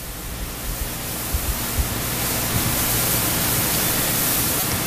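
Steady hiss that slowly grows louder, with a few soft low thumps.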